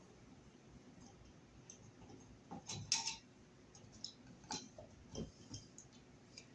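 Faint, scattered clicks and small knocks from a screwdriver and an old wall-mounted electric heater thermostat as it is unscrewed and pulled out of its electrical box, with a cluster of louder clicks about halfway through.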